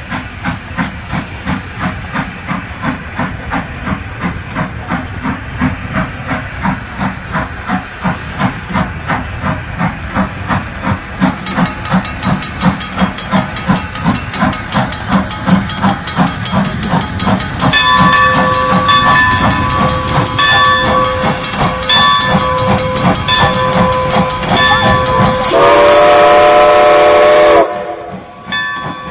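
A steam locomotive working hard toward the listener, its exhaust beating out a rhythm that quickens and grows louder as it nears. From about two-thirds of the way in a bell rings steadily. Near the end the multi-note steam whistle blows one long blast that sags in pitch as it cuts off.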